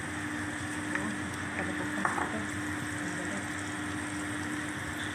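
Diced beef sizzling steadily in olive oil in a frying pan, with a few light clicks about one and two seconds in and a low steady hum underneath.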